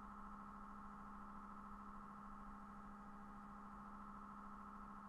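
Faint, steady electronic hum made of a few constant tones, with no other sound.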